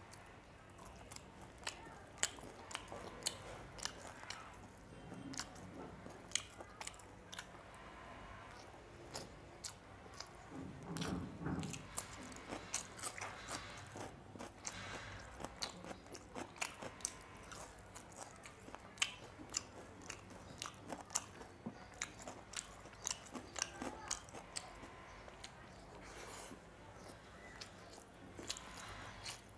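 Close-up chewing and crunching of small whole curried fish eaten with rice by hand: a steady run of wet mouth clicks and crisp crunches of the small fish.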